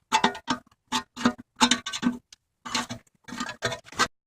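Short plucked guitar notes in quick succession as closing music, cutting off abruptly near the end.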